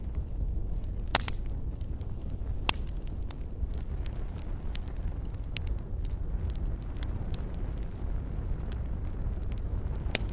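Wood fire in a fireplace crackling: scattered sharp pops and snaps over a steady low rumble, with the loudest pops about a second in and near the end.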